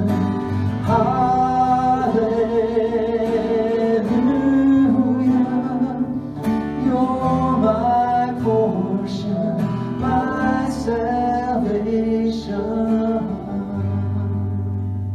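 Praise band playing the closing bars of a worship song: acoustic guitar, electric bass and keyboard, with singing over them. Near the end the band settles on one low held chord that slowly fades.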